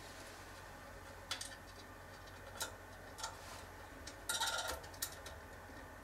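Light metallic clicks against the NAS's steel drive cage as a small screw is fitted: a few single ticks spread out, and a short rattle of clicks about four seconds in.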